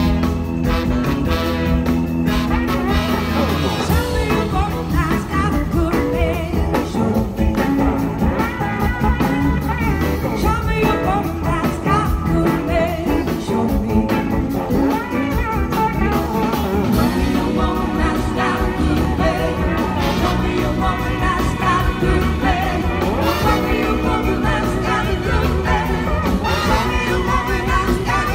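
Live blues-rock band playing: electric guitars, drums and a horn section, with a lead vocal singing over them.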